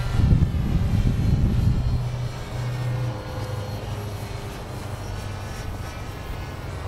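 Motor and propeller of a small foam RC plane droning in flight, the whine fading as the plane flies off, with wind buffeting the microphone for the first two seconds.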